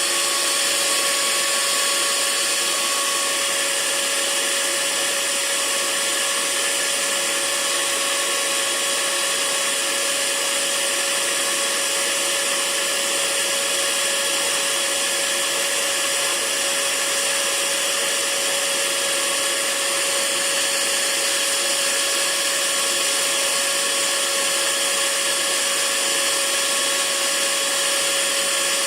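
Hair dryer running steadily: an even rushing hiss of fan and airflow with a constant motor hum underneath, unchanging throughout.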